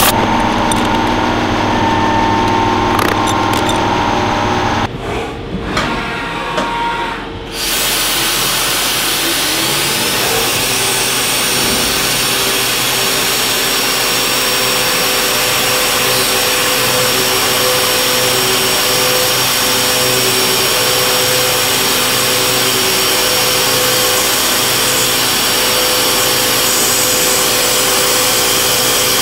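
Haas VF-3 CNC vertical mill. The machine hums steadily at first and dips quieter about five seconds in. Around eight seconds in a whine rises for a couple of seconds and holds high as an end mill cuts the aluminium block, a steady cutting sound with chip noise.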